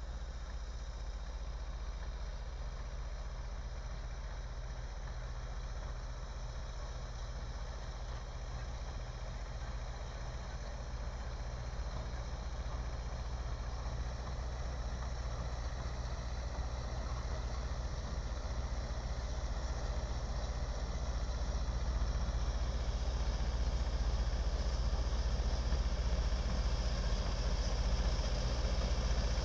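A vehicle engine running steadily with a deep hum, growing gradually louder through the second half.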